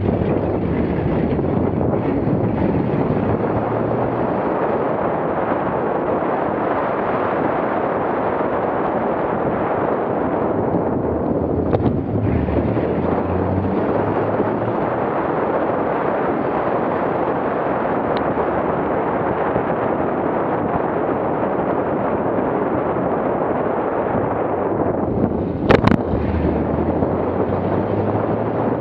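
Wind buffeting the microphone of a hood-mounted camera on a moving off-road vehicle, over the low drone of its engine and tyres. A small knock about midway and a sharper, louder knock near the end.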